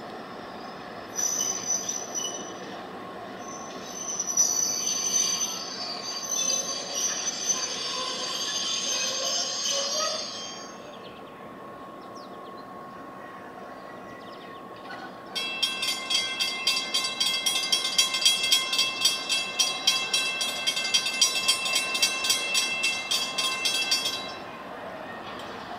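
Steel wheels of a slow-moving diesel-hauled passenger train squealing high and shrill in stretches over the first ten seconds. Later a bell strikes about twice a second for some nine seconds, then stops abruptly.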